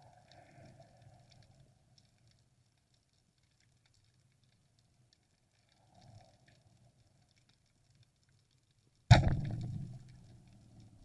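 A speargun fires underwater about nine seconds in, a single sudden loud bang that dies away over about a second and a half. Before it there are only faint scattered underwater clicks.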